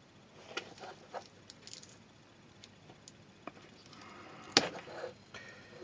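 Utility knife cutting and scraping away the plastic around a cable's jack plug: faint scattered clicks and scrapes, with one sharp click about four and a half seconds in.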